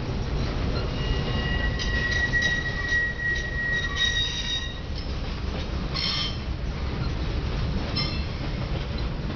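Freight train boxcars rolling past: a steady low rumble of steel wheels on rails, with a thin high squeal of wheels from about a second in until nearly halfway, and two short squeals later on.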